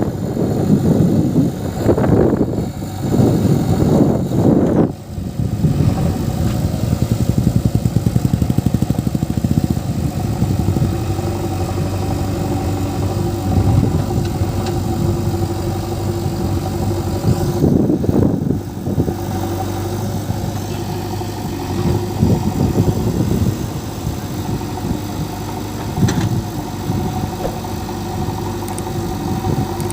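Diesel engine of a JCB 3DX backhoe loader running steadily, with loud surges of revving during the first five seconds and again around eighteen seconds in, as the machine works.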